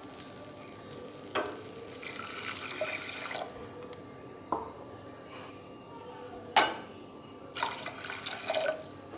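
Water poured from a tumbler into a pot of rice, in two pours, with a few sharp metal clinks between them.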